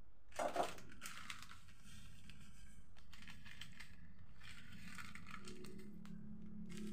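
Pestle stirring and mashing a wet frog chili paste in a mortar, with a short louder knock about half a second in, then scattered small clicks and scrapes.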